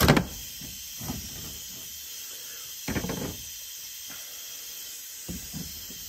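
Hand tool knocking and scraping against the crimped metal ferrule of a transmission cooler line as it is pried open. There are a few short, sharp contacts: the loudest right at the start, then others about a second in, around three seconds in, and near the end.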